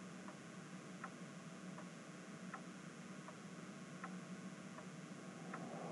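Faint regular ticking, about one tick every three-quarters of a second, over a low steady hiss.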